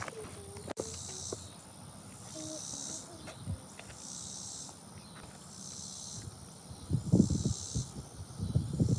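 High insect buzzing that pulses on and off about once a second. From about seven seconds in, louder rustling and bumping noises come in.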